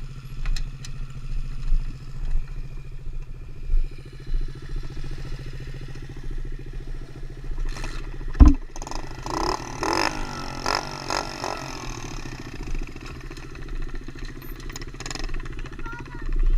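Small pit bike engine idling steadily, with one sharp loud knock a little past halfway through. The engine then revs up and down briefly for a few seconds.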